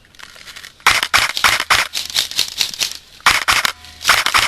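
Airsoft guns firing in rapid strings of sharp cracks, several a second. The shots start about a second in and break off briefly twice.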